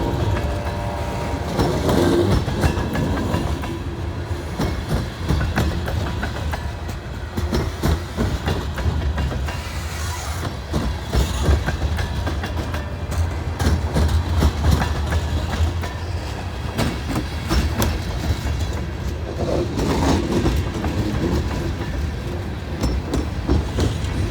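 Loaded grain train's freight cars rolling past, wheels clacking steadily over the rail joints with a continuous low rumble. A brief high squeal sounds near the start.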